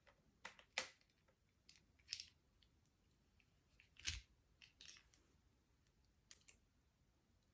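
Scattered light clicks and taps of Allen keys and small metal parts being handled while an air rifle is taken apart; the loudest, a dull knock, comes about four seconds in.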